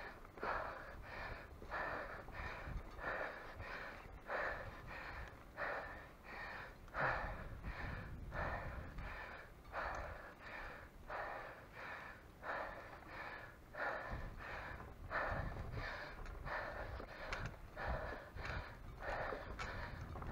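A cyclist breathing hard from exertion, in quick, even, gasping breaths of about one and a half a second, with a low rumble underneath.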